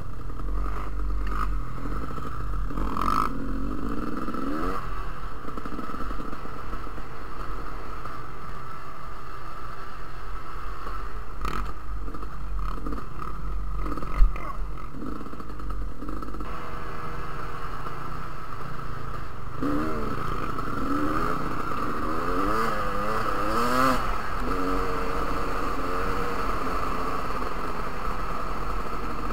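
Dirt bike engine running on a trail ride, its pitch rising and falling repeatedly as the throttle is opened and closed, with rattling from the rough ground. One sharp knock stands out about halfway through.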